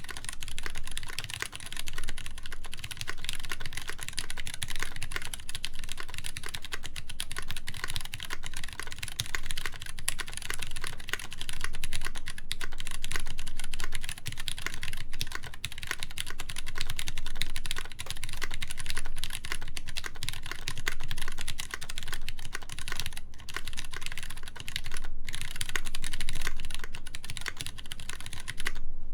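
Continuous fast typing on a mechanical keyboard with lubed Cherry MX Brown tactile switches in a polycarbonate plate, topped with GMK keycaps. The keystrokes run densely and stop suddenly just before the end.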